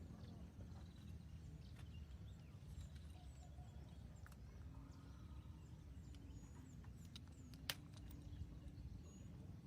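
Near silence: faint outdoor ambience with a low rumble, faint bird chirps and one sharp click about three-quarters of the way through.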